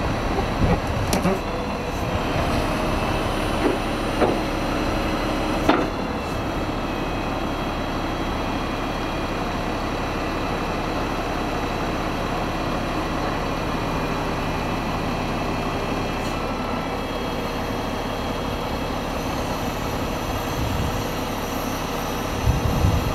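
Refuse truck's engine running steadily to drive its hydraulic loader crane, whose grapple lifts discarded Christmas trees into the truck body. A few sharp knocks and clanks from the crane and grapple come in the first six seconds.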